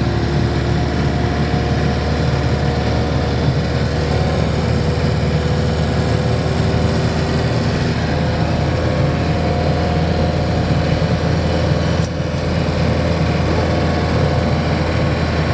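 Camper van engine running steadily under way, with a fresh timing belt; an even drone that sounds quiet and purry. Brief dip in level about twelve seconds in.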